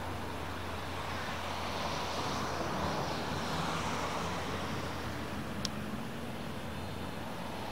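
Steady rushing outdoor background noise with a low hum under it, swelling over the first few seconds and easing off again, and one sharp click about two-thirds of the way through.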